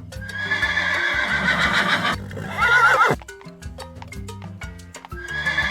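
Horse neighing: a long quavering whinny that falls away about three seconds in, followed by a run of hoof clip-clops, over light background music.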